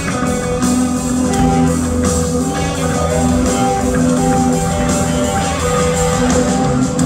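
A live blues-rock band playing, with electric guitars over bass and drums. The notes are held and the level is steady and loud throughout.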